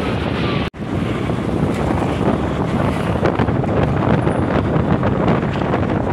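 Wind buffeting the microphone on a moving scooter, over the noise of the ride and surrounding two-wheeler traffic. The sound drops out for a split second near the start.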